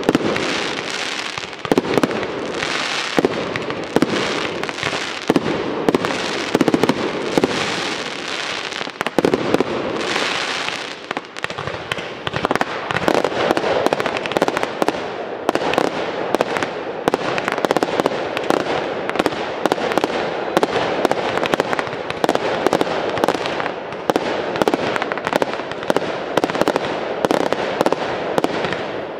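Aerial fireworks display bursting in quick succession, with hissing and sharp reports. About halfway through it turns into a dense, continuous crackle of many small pops.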